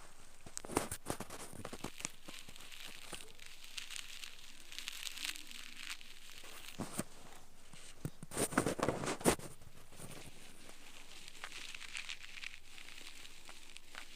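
An ear pick scraping earwax inside the ear canal close to the microphone, giving irregular crackling and rustling scrapes. A louder run of scrapes comes about two thirds of the way through.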